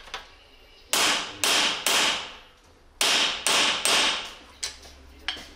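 Hammer blows on a bearing driver, seating a tapered roller bearing race into a Yamaha MT-07 steering head: two sets of three ringing metal strikes. The sound of the blows is a check that the race is properly seated.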